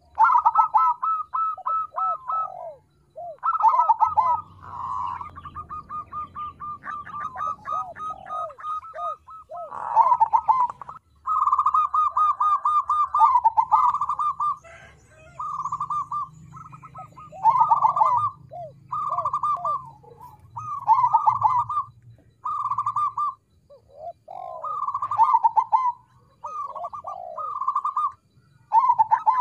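Crossbred zebra dove (perkutut krosing) singing: phrase after phrase of rapid staccato coos, each phrase one to two seconds long with short pauses between, many ending in lower falling notes.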